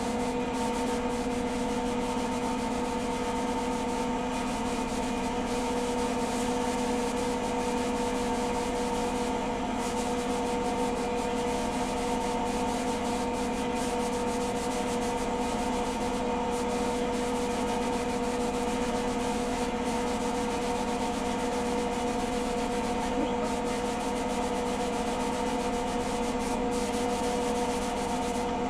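Motor-driven machine running steadily: a constant hum of several steady tones over an even noise.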